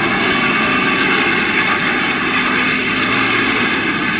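A vehicle engine running hard at steady high revs, loud and unbroken.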